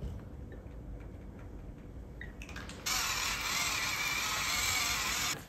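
Faint clicks of tomato pieces dropping onto salad leaves. About three seconds in, a stainless-steel seasoning dispenser worked over the salad gives a loud, steady hiss for over two seconds, which cuts off suddenly.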